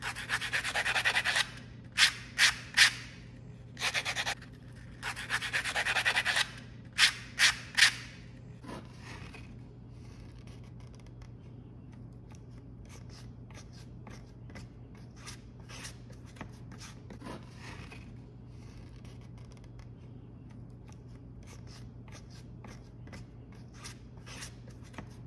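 Folded sandpaper rubbing along the edge of a Kydex sheath by hand, in long and short strokes, for the first eight seconds or so. After that comes a faint, quiet patter of a small brush dabbing and spreading rubber cement onto leather.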